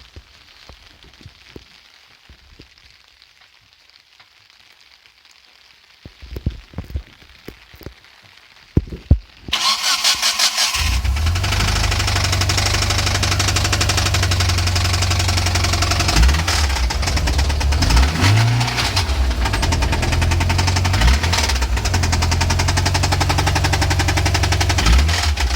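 Mitsubishi Lancer Evo IV's turbocharged 4G63 four-cylinder engine cranking and catching about nine and a half seconds in, after a few thumps, then running steadily with a fast, even knocking from the engine, the strange knock its owner is trying to trace.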